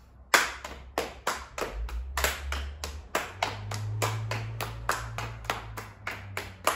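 Hand clapping in a steady rhythm, about three claps a second, beating out a horse's hoofbeats for a children's song.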